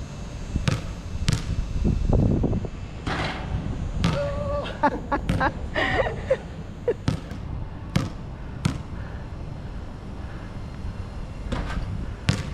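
Basketball bouncing on a court: about ten sharp thuds at uneven intervals.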